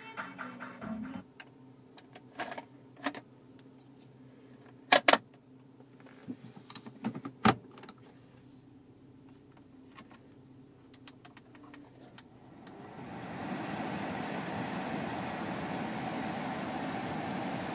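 Car stereo music cuts off, followed by a few sharp clicks, the loudest a close pair about five seconds in. About thirteen seconds in, the 1999 Volvo S80's climate-control blower fan ramps up over a second into a steady rush of air.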